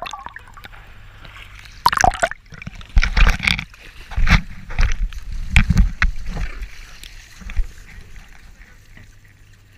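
Water splashing and sloshing around the camera at the surface: a run of loud, irregular splashes between about two and six seconds in, then quieter lapping.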